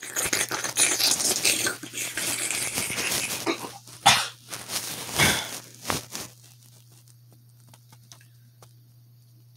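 Handling noise on a phone's microphone: rustling, rubbing and knocks as the phone is moved about. It dies away after about six seconds, leaving a faint steady low hum.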